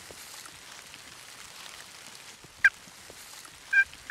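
Hunter's turkey call: a single sharp note, then near the end the start of a run of evenly paced hen yelps, about three a second.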